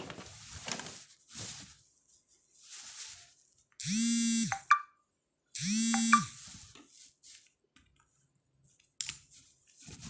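Light rustling and handling of cable wires, broken by two identical steady buzzing tones, each under a second long and ending in a click.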